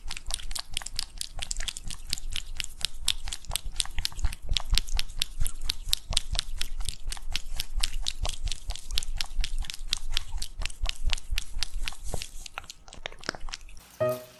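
A cat licking a squeeze-tube treat held to its mouth, close to a microphone: rapid wet licking clicks, several a second, that stop near the end.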